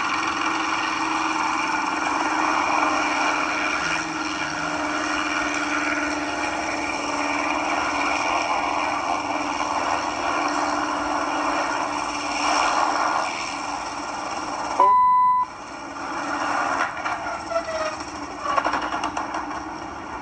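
Hughes 269 light helicopter's piston engine and rotor running steadily at high power as it settles toward a lake, slowed below effective translational lift with no ground effect over the water. About fifteen seconds in, a one-second beep sounds with the other sound cut out beneath it. After that the noise turns uneven, with louder spikes near the end as the helicopter goes into the water.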